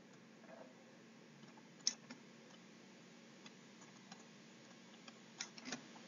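Faint, scattered clicks of a stylus tapping on a pen tablet during handwriting, the sharpest one about two seconds in, over a faint steady hum.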